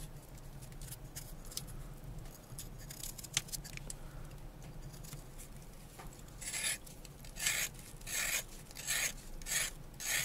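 A thin-bladed NKVD finka knife scraping the skin off a raw carrot in quick repeated rasping strokes, about two a second, starting about six seconds in. Before that there are only faint light clicks of the knife working on a peeled potato.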